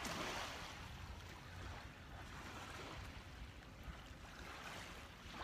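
Waves washing on a beach: a steady hiss of surf with a low rumble underneath, swelling briefly at the start.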